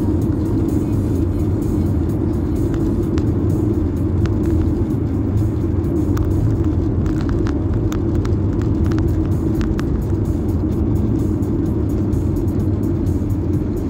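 Steady road and engine noise inside a moving car's cabin, a low rumble with tyres running on wet asphalt. Light faint clicks come and go around the middle.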